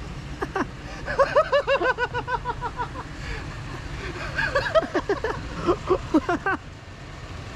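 Laughter in quick, bouncing bursts, twice, over the low steady running of a Dodge Ram 1500 pickup's engine as the truck is driven.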